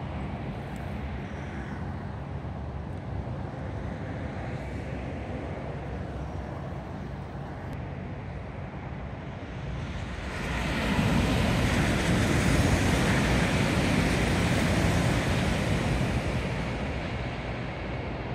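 Sanyo Shinkansen Nozomi train passing at speed: a rushing noise swells about ten seconds in, holds for around five seconds, then fades away.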